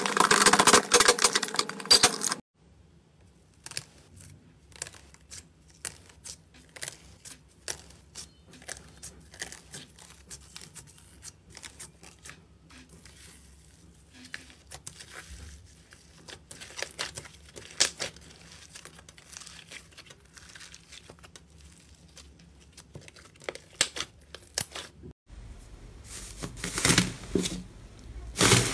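Slime being worked by hand, with no music. First comes a loud crackling tear as crumbly purple slime is pulled apart; then soft, scattered sticky clicks as white slime is stretched. Near the end there is loud crinkling as gold foil laid over slime is pressed down.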